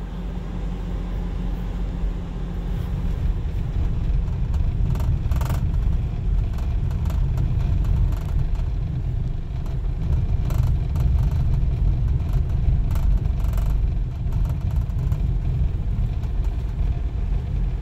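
Steady low rumble of a Subaru driving on a sandy dirt road, heard from inside the cabin: tyre and road noise. A few short knocks from bumps or stones come through along the way.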